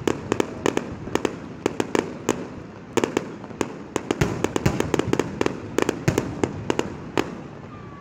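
Aerial fireworks display: rapid, irregular cracks and pops, several a second, with a few deeper thuds among them. The crackling stops shortly before the end.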